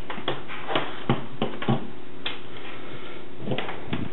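Irregular light clicks and knocks, about eight in four seconds, as a small metal soldering jig and a soldering iron are handled on a tabletop, over a steady low electrical hum.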